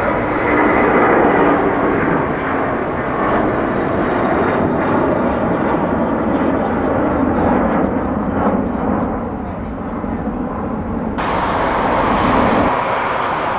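Jet engine roar of an Airbus A330-322's Pratt & Whitney turbofans at takeoff thrust as the airliner climbs away, a loud steady rumble that eases slightly as it recedes. About eleven seconds in, the sound cuts abruptly to a different, hissier jet noise.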